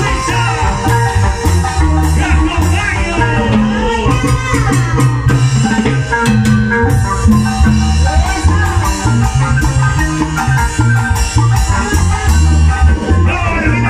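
Live Andean dance-band music with a steady, pulsing bass beat, played on harp, keyboard and timbales.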